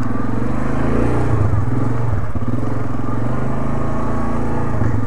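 Yamaha ATV engine running steadily as the quad is ridden through soft mud, picking up briefly about a second in.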